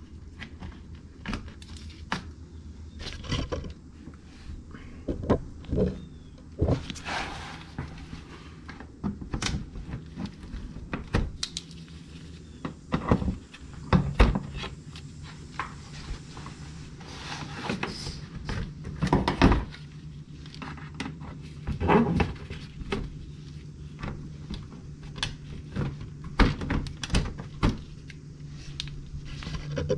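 Irregular clicks, snaps and knocks of plastic push-tab retainers being pried out and a plastic underbody splash shield being handled and flexed. A steady low hum comes in about halfway through.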